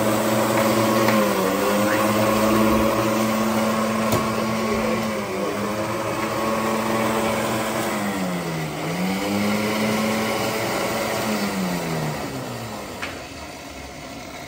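Electric blender with a steel jar blending lassi: the motor runs with a steady hum, its pitch dipping briefly twice under load, then winds down and stops about twelve seconds in, followed by a small click.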